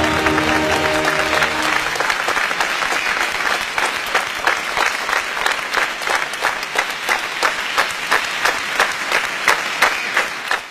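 Audience applause after music fades out about two seconds in; the clapping then falls into time, about two claps a second in unison.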